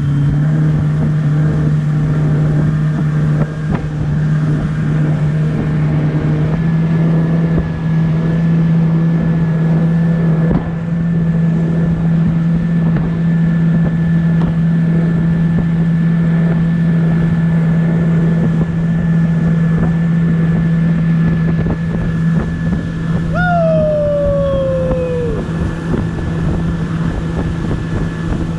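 Motorboat engine running steadily while the boat is underway, its pitch stepping up slightly about six seconds in, with wind buffeting the microphone. Near the end comes a single brief whistle-like tone that falls in pitch.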